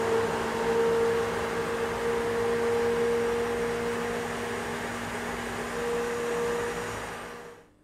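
Hand-held immersion blender running steadily, its motor humming at a constant pitch as it purées chunky tomato sauce in a stainless steel bowl. It stops near the end.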